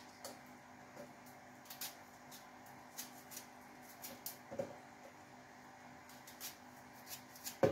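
Faint, scattered small clicks and scrapes of a small knife peeling and trimming a shallot by hand, with a sharper click near the end, over a faint steady hum.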